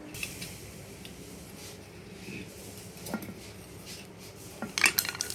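Light metallic clinks and taps of tools and ceiling fan motor parts being handled during disassembly, with a quick cluster of sharper clicks near the end.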